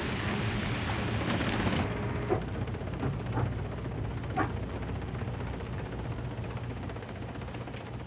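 Steady low machinery hum. A wide noisy wash over it cuts off suddenly about two seconds in, and a few short faint cries come through after.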